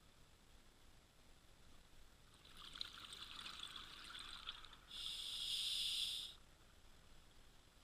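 A scuba diver breathing through an open-circuit regulator underwater: a crackly rush of exhaled bubbles starts about two seconds in, then the steady hiss of an inhale lasts a little over a second, starting about five seconds in.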